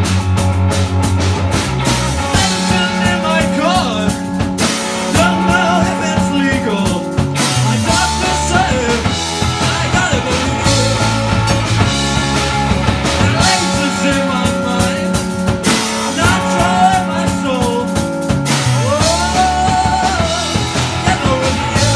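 Live rock band playing loud: distorted electric guitar, electric bass and drum kit, with a lead vocal singing over them from a couple of seconds in.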